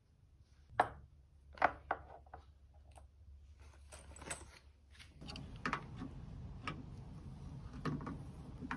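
Hardware being handled: steel bolts clinking and a steel bracket with a pulley knocking down onto wood, a few sharp knocks in the first three seconds. After about five seconds there is a steadier background with lighter metal clicks.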